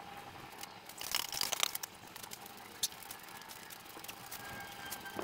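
A bag of concrete mix being handled and set down on a stack of plywood, its plastic sack crinkling and crunching for about half a second, then a single sharp click about a second later.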